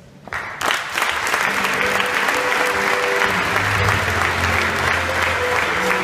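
Large audience applauding, building up in the first second and then holding steady, with music playing over it; a deep bass comes into the music a little after three seconds in.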